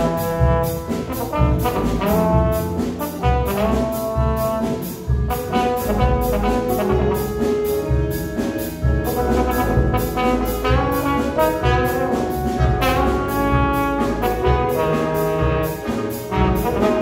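Jazz big band playing, with a trombone soloist out front over the saxophones and rhythm section, and cymbals keeping a steady beat.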